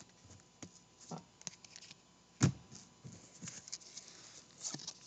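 Faint handling of trading cards: scattered soft scrapes and small clicks, with one louder tap about two and a half seconds in.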